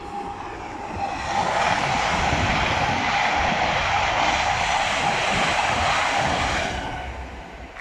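LNER Azuma high-speed passenger train passing close by at speed: a rush of wheel and air noise that swells about a second in, holds for about five seconds, then fades away near the end.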